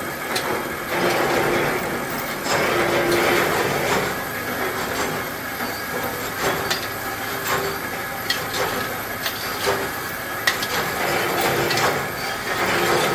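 Ammunition production machinery running: a steady mechanical clatter that swells and eases every second or two, with a hum that comes and goes and scattered sharp metallic clicks, the sharpest about ten seconds in.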